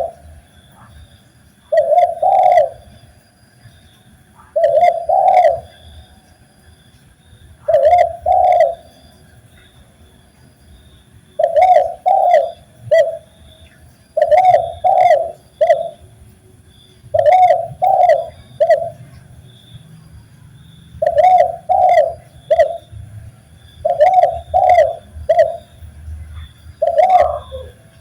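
Spotted dove (tekukur) cooing: short phrases of two or three low coos, repeated every two to three seconds, with faint higher chirps alongside.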